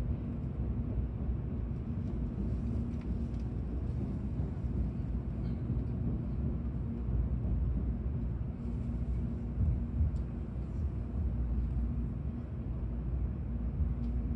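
Steady low rumble of a Tokaido Shinkansen train running, heard from inside the passenger cabin, with a faint steady hum and a few light ticks.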